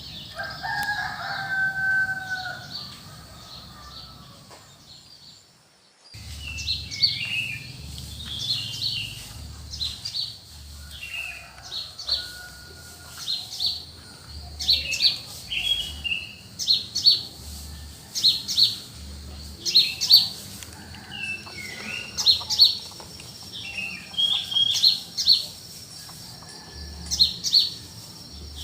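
A rooster crows once in a long call at the start, then, after a brief drop-out about six seconds in, small songbirds chirp over and over in short high notes.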